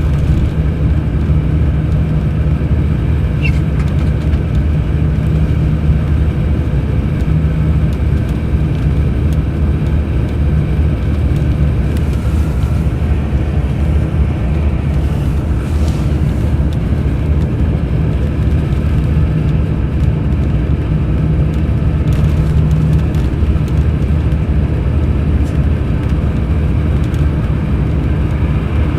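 Mercedes-Benz O500 RSD coach's BlueTec5 diesel engine running steadily under way, a constant deep drone.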